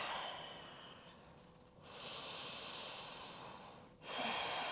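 A woman breathing audibly in slow, long breaths: one trailing off in the first second, a breath of nearly two seconds in the middle, and another beginning near the end.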